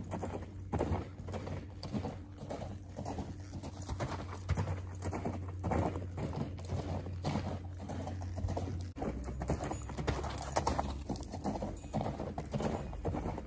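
Hoofbeats of a ridden horse cantering on loose sandy dirt, a steady run of thuds.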